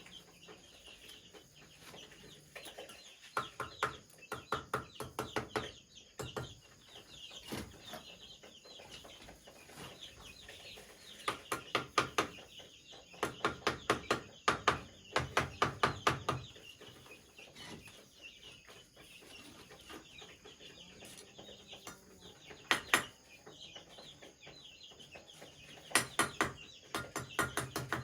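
Chickens clucking, in several runs of quick, short repeated clucks.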